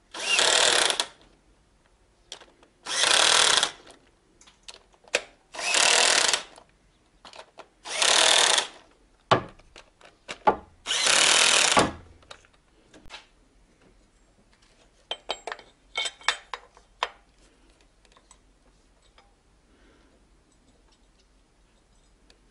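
Cordless drill-driver running in five short bursts a couple of seconds apart, tightening the five valve-cover bolts to 10 N·m. A few sharp clicks and light tool-handling ticks follow.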